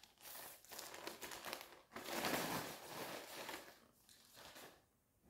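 Plastic clothing packaging crinkling and rustling as it is handled, loudest about two seconds in, then dying away near the end.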